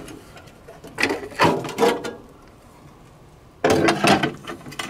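Steel military surplus ammo can being opened: the lid latch released and the lid worked off, metal scraping on metal. A first burst of scraping about a second in, then a longer, louder one near the end.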